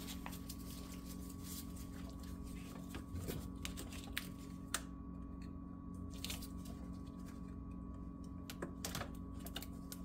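Faint scattered clicks and rustles of a gloved hand handling a car's wiring harness and its wrapping in the wheel well, over a steady low hum.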